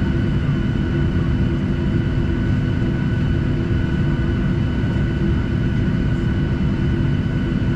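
Steady drone of a Boeing 737-700's CFM56-7B engines at idle, heard inside the cabin over the wing, with several steady tones over the hiss of cabin air.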